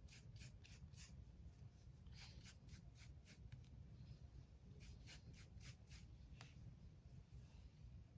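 Faint, rhythmic scratchy strokes of a brush or comb drawn through hair, about three or four a second, coming in three short runs with pauses between them.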